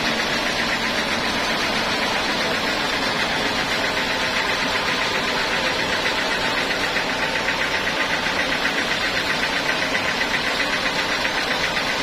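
Sawmill band-saw machinery running steadily: a loud, continuous mechanical drone with a fast, even pulsing.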